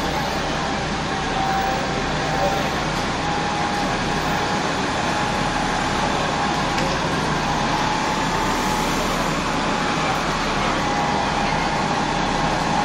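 Double-decker bus running at low speed while reversing slowly into its bay. A steady high tone sounds over the engine and traffic noise, with only brief breaks.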